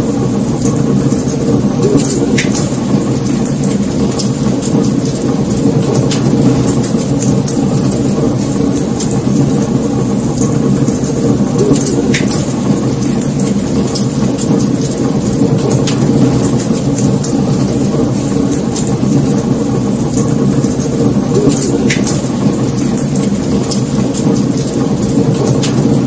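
Wood fire burning, with a steady low rush and scattered crackles and pops throughout; a few louder snaps stand out.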